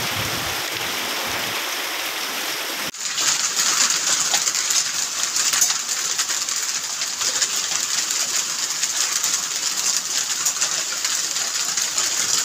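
Hail pelting the ground in a heavy hailstorm: a dense, steady patter of small hard impacts. About three seconds in, an abrupt change to a louder, crisper clatter of many tiny ticks.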